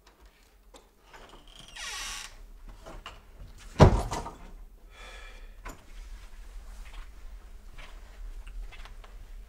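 A front door is opened and then shut with one loud bang just before four seconds in, followed by faint footsteps.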